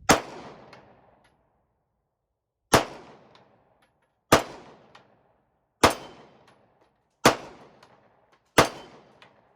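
Six single 9mm pistol shots, fired slowly about one and a half seconds apart. Each has a short echoing tail, with faint light ticks after some of them.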